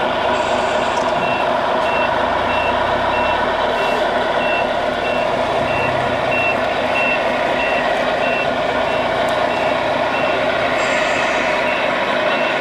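Sound module of a radio-controlled scale model truck playing a diesel engine running, with an electronic reversing beeper at about two beeps a second while the truck backs up with its tipper trailer.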